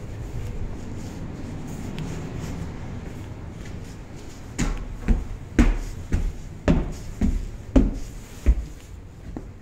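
Low steady rumble, then about eight heavy footsteps going up wooden basement stairs, one every half second or so.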